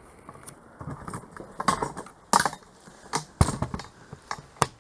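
Hand tools and metal parts clinking and knocking: a string of sharp, separate clicks and taps, the loudest about three and a half seconds in.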